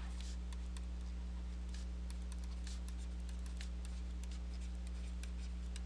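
Steady low electrical hum with faint scattered ticks and scratches of writing.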